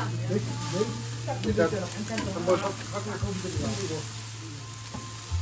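Pork belly sizzling on a grill, a steady frying hiss with faint voices talking underneath and a low steady hum.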